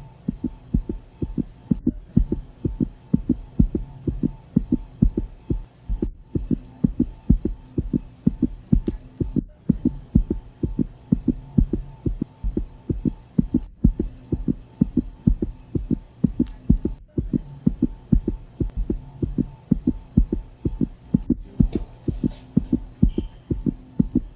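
Canine fetal heartbeat, a puppy in the womb: fast, regular beats about four a second, over a steady hum.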